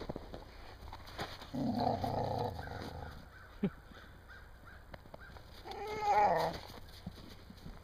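Dog vocalizing twice: a rough sound lasting about a second and a half, starting about one and a half seconds in, then a louder, wavering pitched sound around six seconds in.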